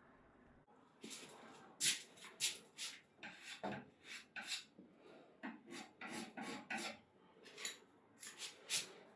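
A filler knife scraping repeatedly across a wooden surface in short, irregular strokes, spreading and smoothing filler.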